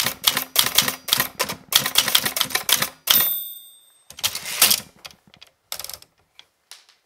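Manual typewriter keys striking about four times a second. About three seconds in the carriage bell rings. Then comes the longer rasp of the carriage return, and a few fainter clicks.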